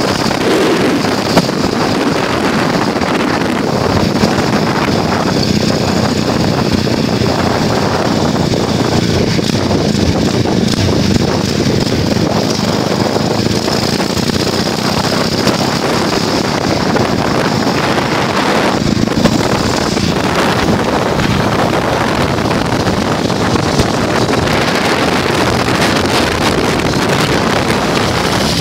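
A motor running steadily, with heavy wind buffeting the microphone.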